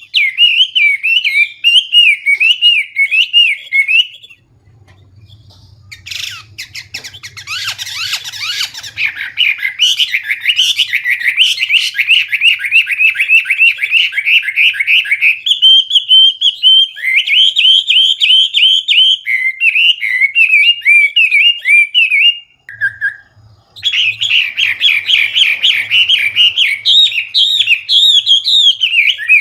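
A Chinese hwamei sings loudly and continuously in rapid, varied whistled and warbled phrases, mixing in mimicked song. It breaks off briefly about four seconds in and again a little after twenty seconds. A harsher, rattling passage comes around seven to nine seconds.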